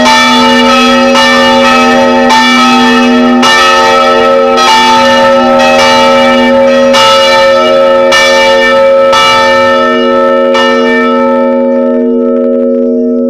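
Three church bells (250 kg, 110 kg and 55 kg) ringing together at very close range, very loud, their clappers striking roughly once a second. About eleven seconds in the strikes stop and the bells hum on, slowly fading.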